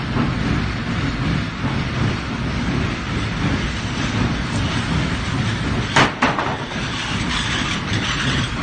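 Teagle sack hoist (rope-on-winch system) in operation: a steady rattling rumble from its winch and rope/chain, with two sharp knocks close together about six seconds in.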